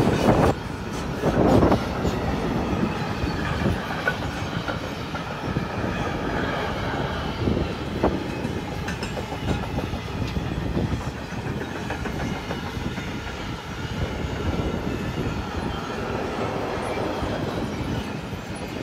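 Freight train of sliding-wall wagons rolling past: a steady rumble of steel wheels on rail, with a regular clatter as each wagon's wheels go by and a couple of louder knocks in the first two seconds.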